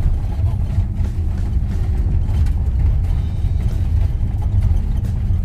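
Renault Master van being driven, a steady low rumble of engine and road noise.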